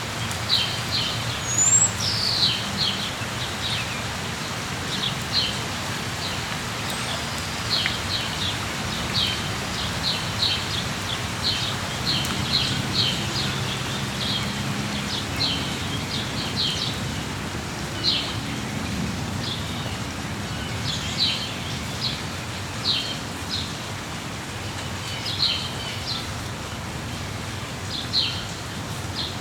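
Steady rain with small birds chirping: short high chirps come in quick clusters every second or two over the even patter.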